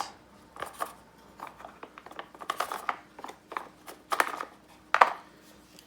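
Clicks, scrapes and rattles of a battery chainsaw's plastic side cover, bar and chain being handled and taken apart by hand, with one sharper knock about five seconds in.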